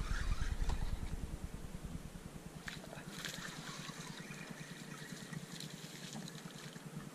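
Water splashing and trickling at the side of a pontoon boat as a hooked freshwater drum is reeled in close, with a low rumble on the microphone in the first second and a few brief splashes about three seconds in.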